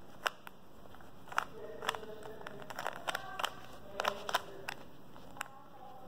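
Plastic 3x3 Rubik's cube being turned by hand: an irregular run of sharp clicks and clacks as its layers are twisted round through a solving algorithm.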